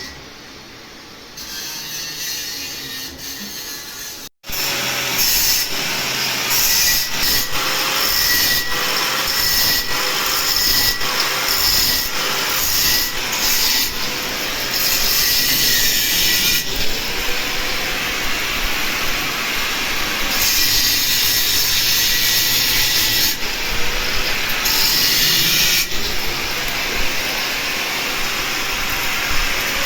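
Electric arc welding on steel pipe: a steady, crackling hiss from the arc that comes in loud after a short, quieter hissing stretch about four seconds in.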